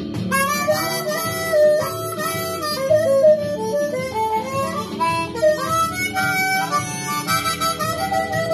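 Blues harmonica played with both hands cupped around it, a continuous run of held and bent notes.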